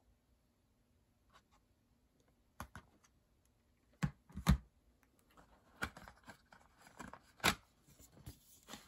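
Plastic CD jewel case being handled and opened: scattered clicks and knocks with light scraping, the loudest knocks about four and four and a half seconds in.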